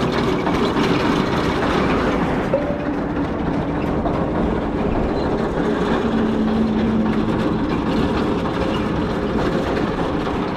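Royal Enfield Guerrilla 450 motorcycle running at road speed, its engine under steady wind and road noise.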